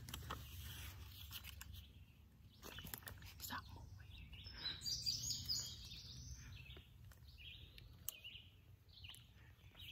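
Quiet forest ambience: faint rustles and crackles with scattered bird chirps.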